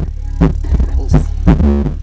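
Loud, bass-heavy music played through a JL Audio 10-inch W3v2 subwoofer in a pickup cab: a steady deep bass with short pitched notes repeating over it, a couple each second.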